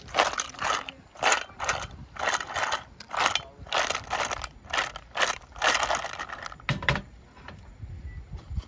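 Clams in their shells clattering against each other and a stainless steel saucepan as the pan is shaken to stir-fry them, about two shakes a second. The shaking stops about six seconds in, followed by a couple of knocks.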